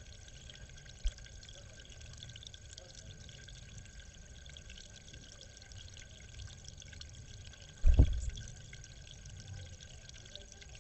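Water trickling and dripping in a small garden pond, with a faint steady high tone underneath. A brief click about a second in, and a short, loud low thump about eight seconds in.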